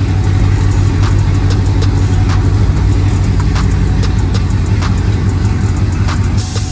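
Chevrolet Camaro SS V8 engine idling steadily.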